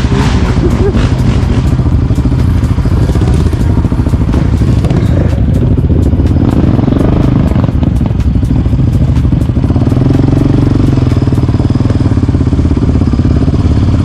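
Quad bike (ATV) engine running steadily under load, with light clicks and rattles over it.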